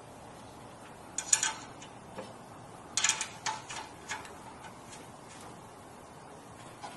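Short metallic clicks and clatter as the sheet-metal side panel of a Synesso espresso machine is fitted back on, in two brief clusters, one about a second in and another around three to four seconds in.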